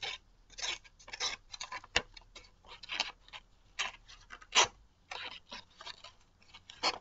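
Knife blade slicing a sheet of paper in a series of short, irregular, scratchy strokes, about two a second, as it tests the edge's sharpness.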